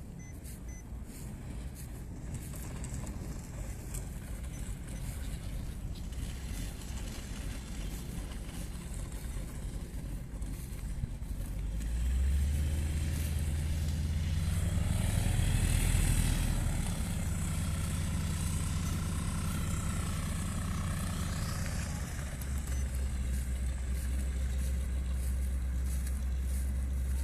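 Light propeller aircraft engine, most likely the tow plane, droning. It grows loud about halfway through, its pitch bending as it passes, then settles into a steady drone.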